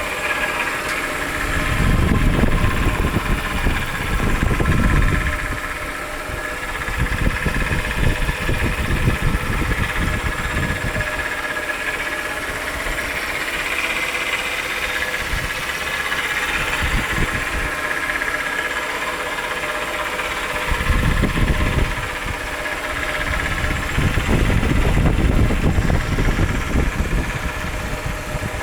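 2001 Chrysler 300M's 3.5-litre V6 idling with a rattle in the engine, which the owner places at the timing cover or the right-bank valve train next to it. A heavier low rumble swells and fades several times.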